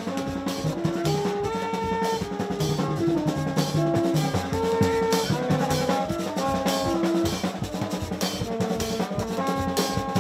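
Haitian rara band playing: drums keep a steady beat under a melody of held horn notes that step up and down in pitch.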